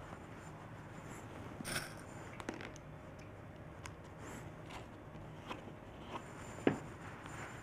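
Faint scattered clicks and light scrapes of small seashells and pearl beads being handled and pressed into wet grout on a wooden frame by hand, with one sharper click near the end.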